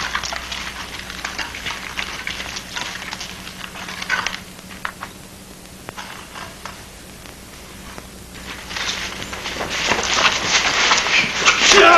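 Footsteps crunching on a gravel yard, easing off midway. They are followed by a growing patter of many feet running in, louder toward the end.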